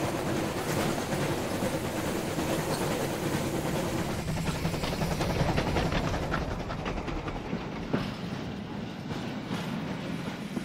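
A steam train running along the track, a steady rumble with the clatter of wheels on the rails, and a sharper click about eight seconds in.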